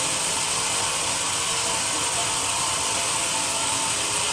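Sawmill saw running steadily through a teak log: a continuous, even noise with a strong high hiss.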